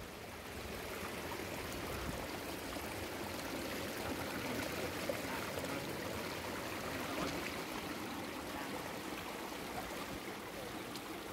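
Shallow stream water running steadily, spilling and splashing over a low rock ledge.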